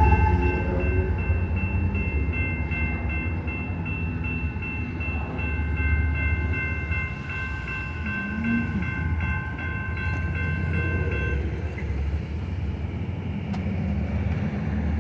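Railroad grade-crossing warning bell ringing in steady, even strokes over the low rumble of a departing BNSF freight train. The bell stops about three-quarters of the way through as the crossing gates come up.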